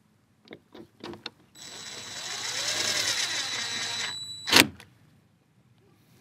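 Power drill running steadily with a high whine for about two and a half seconds, with a few light clicks before it and one sharp knock just after it stops.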